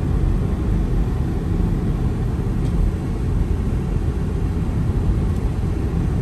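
Steady low rumble of a moving car, heard from inside the cabin, with no distinct events.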